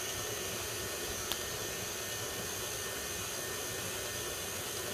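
KitchenAid Classic stand mixer running, its motor giving a steady whir with a faint high whine as the beater works flour into thick pound cake batter. One small click about a second in.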